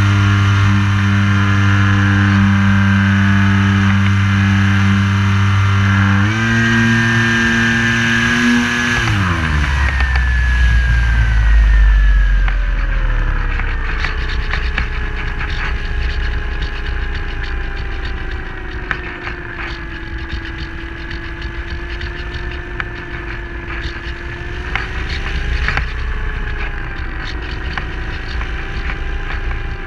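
Onboard sound of a radio-controlled model airplane's motor and propeller running steadily at high throttle, stepping up slightly about six seconds in. It is throttled back about nine seconds in, leaving a lower, wavering tone and air rush as the plane glides down.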